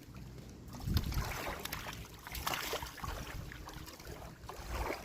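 Wind buffeting the microphone, with low rumbling and scattered short knocks and rustles.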